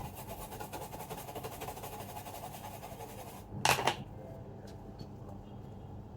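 Faint rapid buzz for the first three seconds or so, then a brief loud clatter of something handled on the workbench, then low background.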